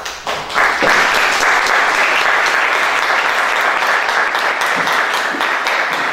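Audience applauding, the clapping swelling to a steady level within the first second.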